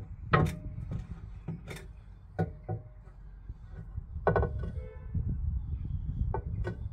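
Irregular metallic knocks and clunks as a front leaf spring and lower control arm are worked into place under a van, about six sharp strikes, some with a short ring, over a steady low rumble.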